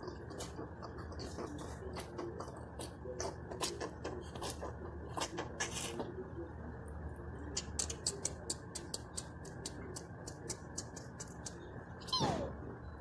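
Scattered small clicks and taps of craft pieces being handled and pressed down on a tabletop, coming faster in the second half. Near the end there is a brief falling squeak.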